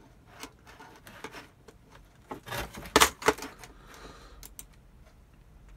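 Hands handling a resin miniature tank model and its packaging: scattered small clicks and rustles, with a short cluster of sharper clicks about three seconds in.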